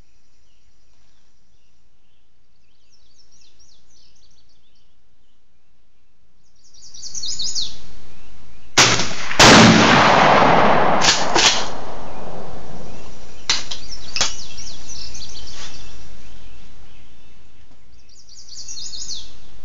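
A 20-gauge Remington 870 pump-action shotgun fires a slug about nine seconds in, a loud sharp crack with a long noisy tail, followed by a few smaller sharp knocks over the next five seconds. Songbirds chirp before and after.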